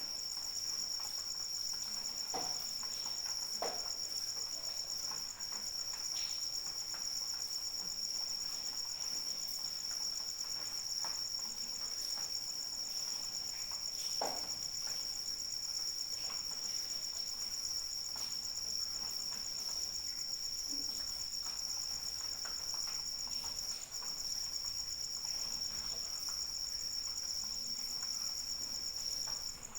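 Crickets trilling without a break at two high pitches, with faint scattered drips of light rain underneath.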